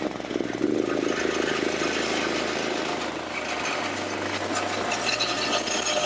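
A 7.5 hp single-cylinder petrol engine, freshly pull-started, running steadily as it drives a feed mill.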